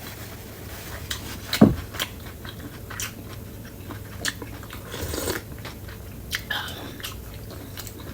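Close-miked eating of bún bò: chewing and biting a mouthful of noodles and beef, with scattered short wet smacks and clicks, the loudest about a second and a half in.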